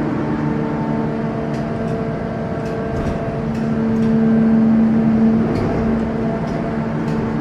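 Factory machinery running with a steady hum and a few held whining tones, with faint light clicks here and there.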